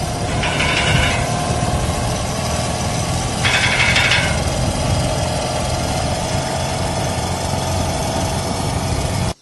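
Motorcycle engine running steadily, with two short hissing bursts about half a second in and again about three and a half seconds in; the sound cuts off abruptly at the end.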